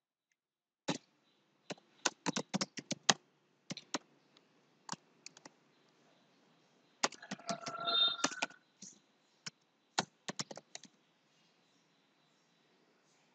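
Typing on a computer keyboard: irregular bursts of key clicks with pauses between them. A brief pitched tone sounds among the keystrokes about eight seconds in.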